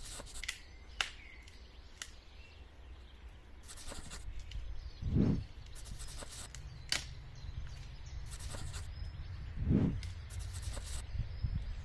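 Irregular scraping and sharp knocks from hands-on work with wood and tools, with two dull thuds about five seconds apart; no chainsaw running.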